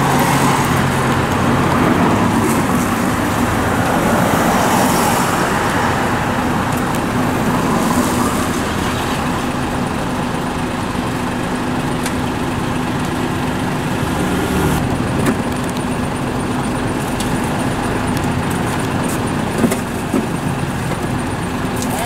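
Concrete mixer truck running beside the road, a steady engine hum with a constant low tone. Road traffic rushes past, loudest in the first several seconds, with a few light knocks near the end.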